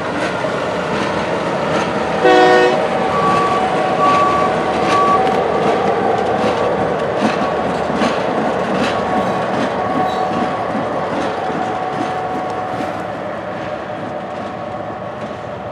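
A Herzog rail tie train rolling past on the line, with one short horn blast about two seconds in. Its wheels click over the rail joints in a steady rhythm, and the rumble fades near the end as the last cars go by.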